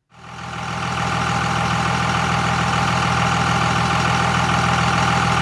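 Engine idling steadily, fading in just after the start.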